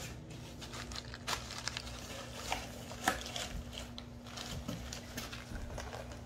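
Crumpled brown packing paper rustling and crackling in short, irregular bursts as a cat shifts and paws about on it in a cardboard box, with the sharpest crackle about three seconds in.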